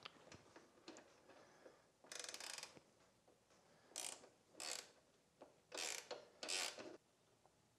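Socket ratchet wrench clicking in five short runs as a bolt is turned while fitting the motorcycle's side stand; the first run, about two seconds in, is the longest.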